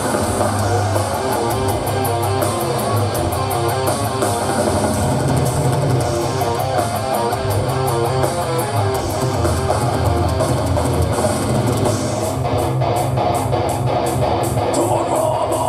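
Melodic death metal band playing live: an instrumental passage of distorted electric guitar riffing over drum kit and steady cymbal hits, with no vocals.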